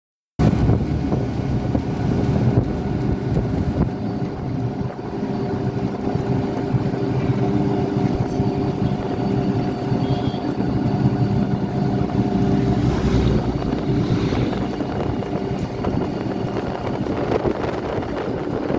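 Road traffic: a steady rumble of vehicle engines and tyres, with a steady engine hum running through it. It starts abruptly about half a second in.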